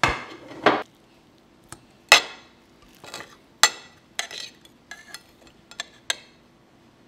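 A plate set down on a wooden table, then a metal fork clinking and scraping against the plate as it cuts into baked fish, in a series of sharp clinks a second or so apart.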